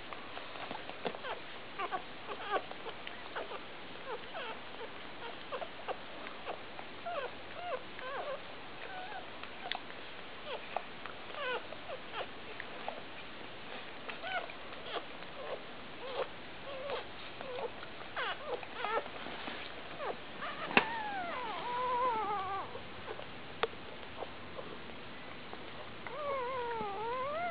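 Newborn Labrador retriever puppies squeaking, many short high squeaks throughout, with a longer wavering cry falling in pitch about 21 seconds in and another starting near the end. A single sharp click, the loudest sound, comes just before the first long cry.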